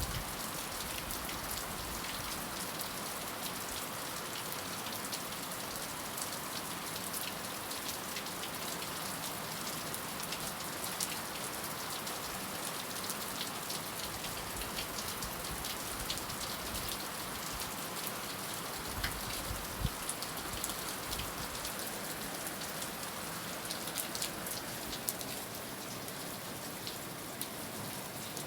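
Steady heavy rain falling on a surface, an even hiss full of close drop impacts, with a few louder individual drops.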